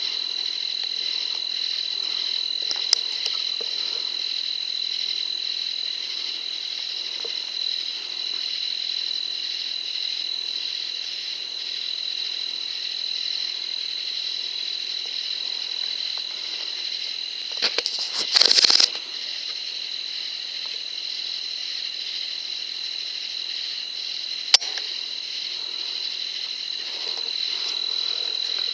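Steady chorus of night insects, a continuous high-pitched trill. A sharp click comes a few seconds in and another near the end, and about two-thirds of the way through there is a clatter lasting about a second, the loudest sound.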